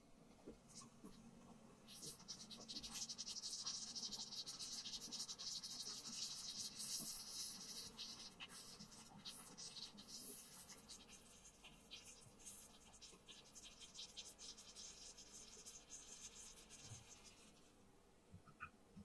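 Wooden chopsticks stirring a wet tomato and vegetable mixture in a miniature ceramic saucepan: a steady, fine scraping hiss with many small clicks that starts about two seconds in and stops a little before the end. A light tap follows near the end.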